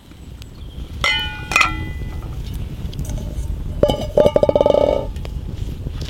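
Metal clinking: two ringing clinks about half a second apart, then a rapid rattling run of clinks lasting about a second.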